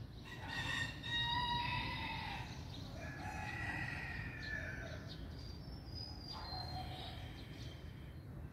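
Rooster crowing: two long crows of about two seconds each, followed by fainter calls.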